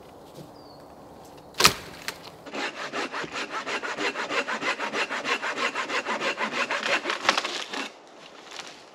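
A hand saw cutting through a dead fallen branch with a run of quick, even strokes while firewood is being processed. It is preceded about one and a half seconds in by a single sharp crack of wood, louder than the sawing.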